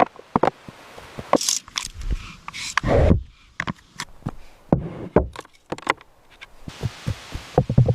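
Irregular knocks, clicks and thuds of wood being handled or worked, with a heavy low thud about three seconds in and short rustles between.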